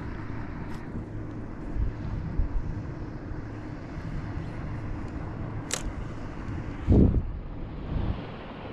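Electric trolling motor of an Old Town Sportsman AutoPilot kayak running steadily with a low hum while under way. A sharp click comes near six seconds in, then a dull thump about a second later.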